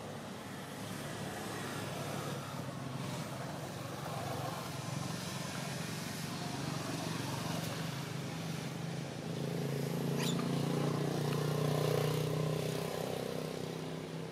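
A motor vehicle engine running, swelling in loudness to a peak about twelve seconds in and then fading as it passes.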